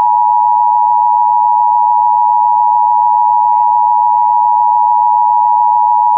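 Emergency Alert System two-tone attention signal: two steady, high-pitched tones sounding together as one loud, unbroken alarm chord. It is the alert tone that precedes a broadcast emergency warning message.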